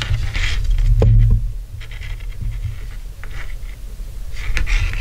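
Handling noise from fishing line and a snap-connector rig being lifted and moved by hand: a low rumble with light scratchy rustles, and one small click about a second in.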